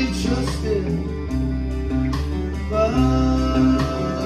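Live rock band playing: electric and acoustic guitars over bass and drums, with a long held lead note starting about three seconds in.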